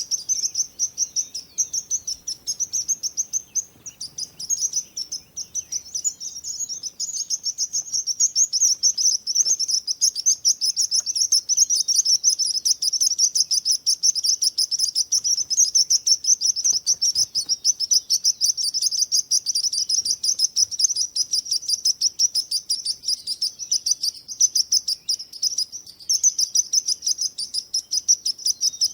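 Many small birds chirping and twittering rapidly and continuously in a dense chorus of high-pitched notes.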